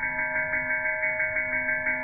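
Homemade electric door bell with a temple bell for its gong, its electromagnetic hammer striking rapidly, about seven times a second, so that the bell rings continuously in a steady, shimmering tone.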